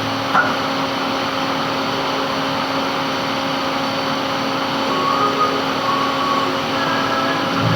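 Metal lathe running steadily while turning a gland: an even machine hum with a faint fixed whine, and a single short click about half a second in.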